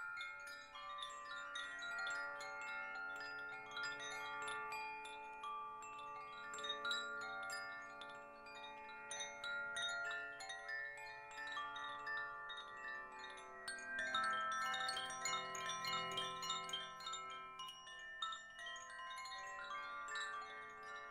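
Metal chimes struck over and over, many ringing tones overlapping and hanging on.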